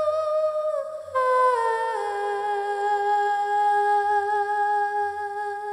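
Background music: a single slow, humming-like melodic line of long held notes that steps down in pitch about a second in and again near two seconds, then holds a low note.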